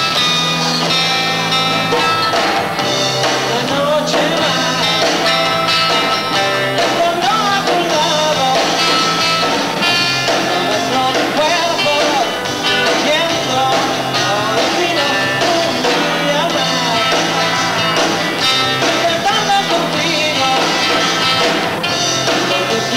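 Live rock band playing: electric guitars over bass guitar and drum kit, with held bass notes changing every second or two.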